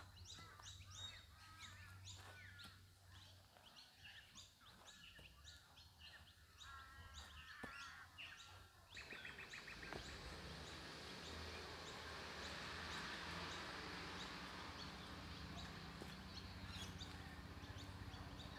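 Faint outdoor ambience: birds chirping and calling in short sweeps over the first half, then a steady faint hiss takes over for the rest.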